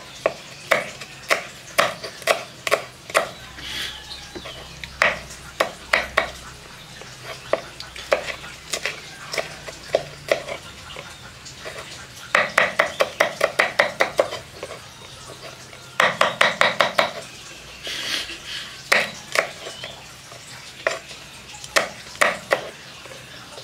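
Kitchen knife chopping fresh chillies on a wooden cutting board: irregular single knocks of the blade on the board, with two quick runs of rapid chops about halfway through and again a few seconds later.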